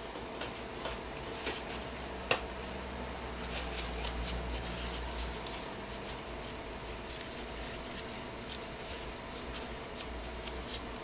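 Small clicks and taps of tools and small parts being handled on a workbench during an electronics repair, over a steady low hum.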